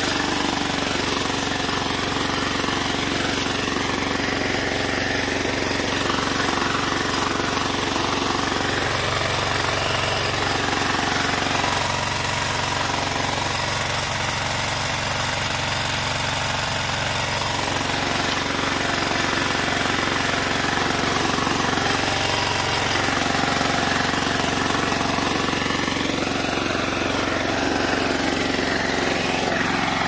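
Walk-behind power tiller's small air-cooled engine running steadily under load, loud and rattling, as its rotary tines churn through orchard soil.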